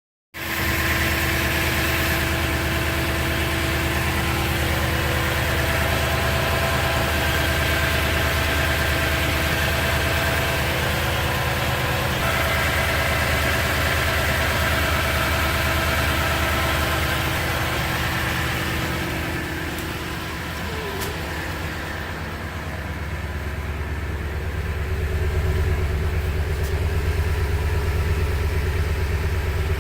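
Toyota Sequoia engine idling steadily. The level dips briefly about two-thirds of the way through, after which the low rumble is stronger.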